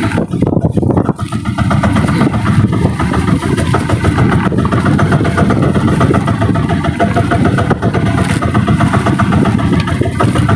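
Outrigger fishing boat's engine running steadily, with a fast, even pulse.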